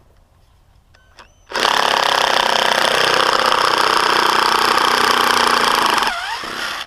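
Cordless power drill running under load for about four and a half seconds, after a brief blip of the trigger; its pitch sags near the end before it stops suddenly. It is a home-use cordless tool that is struggling in the cold.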